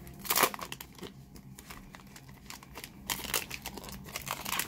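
Foil trading-card pack wrapper crinkling and tearing as it is opened by hand, loudest in a burst near the start, with softer crinkles later on.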